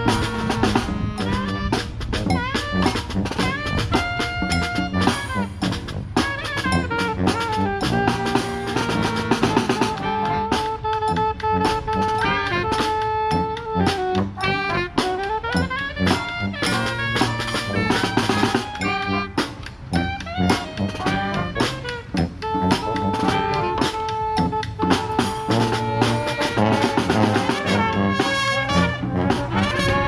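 Street brass band playing live outdoors: trumpets, trombone and sousaphone over marching drums, with a steady beat and long held horn notes.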